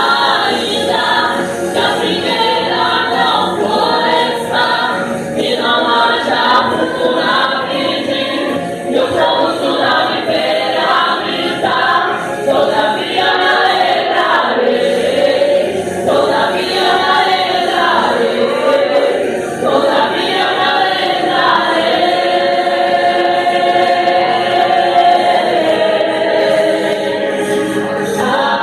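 Church praise group singing a gospel song together, several voices sustained without a break.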